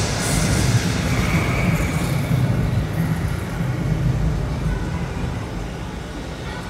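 A loud, deep rumble with a hiss above it, starting suddenly and easing off slowly toward the end.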